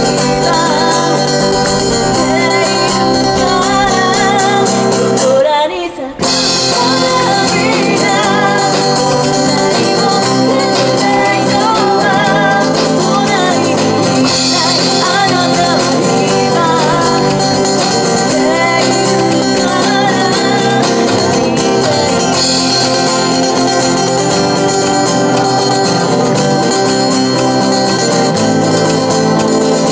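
Live acoustic band: a woman singing a pop ballad through a PA over strummed acoustic guitars, with a brief pause about six seconds in.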